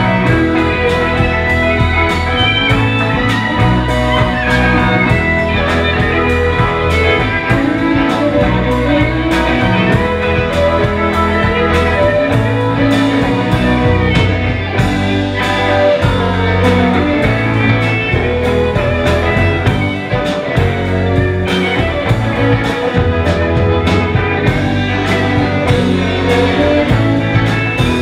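Live rock band playing: electric guitar, violin, drums and keyboards over a steady drum beat.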